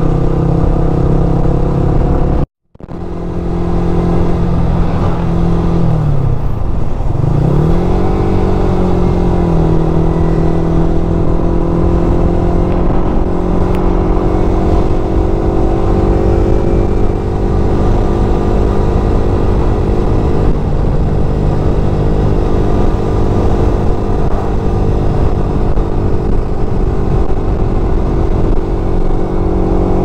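Yamaha R15's single-cylinder four-stroke engine running steadily under way. There is a brief silent gap about two and a half seconds in. A few seconds later the engine note drops and climbs back twice, then holds steady and eases slightly.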